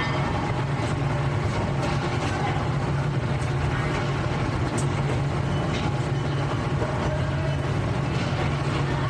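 Steady factory machinery noise: a continuous low hum under a haze of mechanical clatter, with a few faint clicks.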